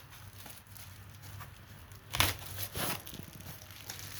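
Packaging crinkling as it is handled, with two louder rustles a little past the middle.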